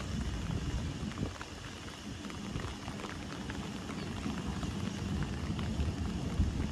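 Wind buffeting the microphone: an uneven low rumble that swells and fades over a steady outdoor rush, with a few faint ticks.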